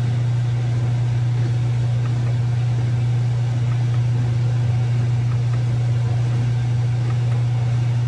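Steady low hum of a running machine, unchanging in pitch and level.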